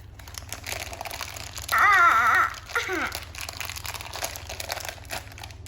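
Plastic toy packaging crinkling and crackling as it is torn open. About two seconds in, a short wavering hum of a voice is the loudest thing.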